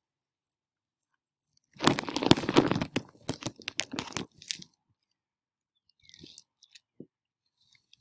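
White sheet table covering crinkling and crackling as the wind lifts it, a dense run of sharp crackles for about three seconds starting about two seconds in, then a few faint ticks.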